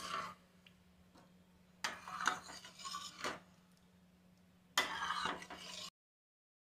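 Metal ladle stirring thick dal in a stainless-steel pot, scraping and clinking against the pot's sides. This comes in two short spells, about two seconds in and again about five seconds in, before the sound cuts off suddenly.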